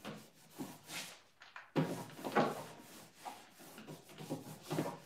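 Paintbrush strokes scraping and rubbing on the wooden interior of a cabinet, irregular and uneven, with a sharper knock against the wood about two seconds in.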